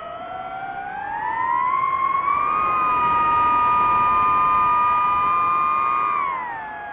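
DJI FPV drone's electric motors and propellers whining, several close tones together; the pitch climbs as the throttle goes up, holds high and steady, then drops as the throttle comes back near the end.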